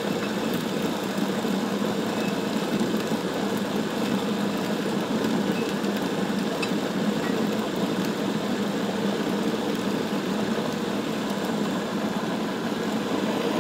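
Food processor motor running steadily, its blade spinning through butternut squash, eggs, sugar and butter to make a smooth purée.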